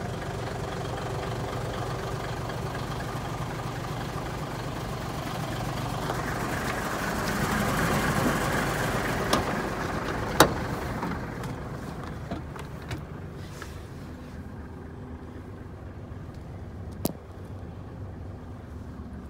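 Mitsubishi Fuso Super Great heavy truck's diesel engine idling steadily. It grows louder around seven to ten seconds in, then sounds quieter and duller as heard from inside the cab. A few sharp knocks break through, the loudest about ten seconds in and another near the end.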